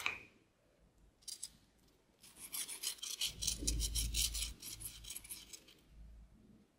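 Crisp crust of a twice-fried potato wedge crackling as fingers break it apart: a short crackle about a second in, then a dense run of small crackles for about three seconds.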